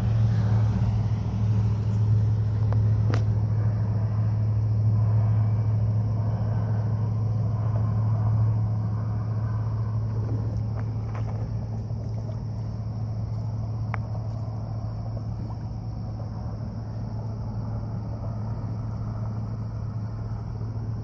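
Steady low motor drone, easing off slightly about halfway through, with a few faint clicks.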